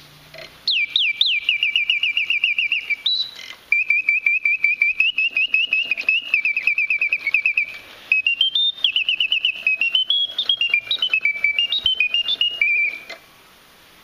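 French Bontems mechanical singing-bird automaton whistling its song from a bellows-blown piston whistle: long runs of rapid, evenly repeated chirps, broken briefly about three and eight seconds in, then a phrase of notes stepping up and down before the song stops near the end.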